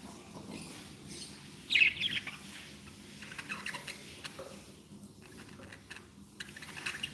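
Budgerigars chirping and twittering in short scattered calls, the loudest burst about two seconds in, over a low steady hum.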